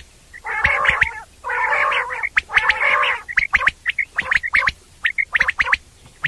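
Common quail calling: three harsh, raspy calls of about half a second to a second each, then a quicker run of short, clicking notes.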